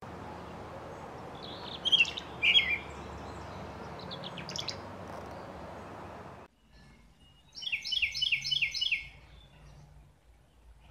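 Tree swallow chirps over steady outdoor background noise. The background then drops away abruptly, and a quick run of high chirps follows, about five a second for over a second.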